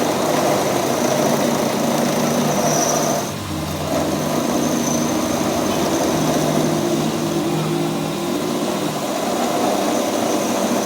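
A machine motor running steadily with a constant hum, briefly dipping about three and a half seconds in.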